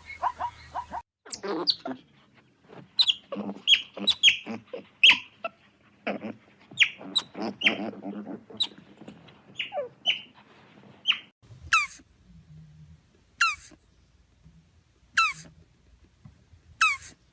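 Animal calls: many short, high squeaky chirps that slide downward in pitch, then four sharp falling calls evenly spaced about a second and a half apart.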